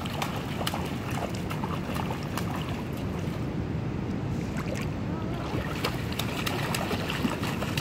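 Water splashing as a small child slaps and wades in a shallow stream, many quick splashes over a steady low rush. The splashing eases off for a couple of seconds in the middle, then picks up again near the end.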